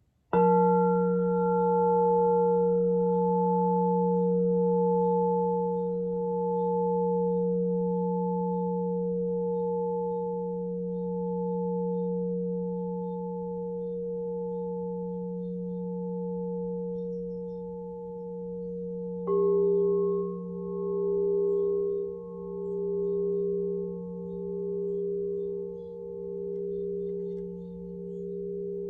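Alchemical crystal singing bowls ringing with long, pure, overlapping tones that pulse slowly as they beat. One bowl is struck just after the start, and a second is struck about two-thirds of the way in; its tones layer over the first, which are still sounding.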